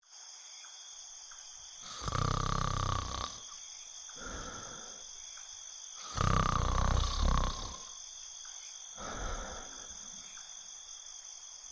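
Snoring sound effect: two long, loud snores about four seconds apart, each followed by a shorter, quieter breath out.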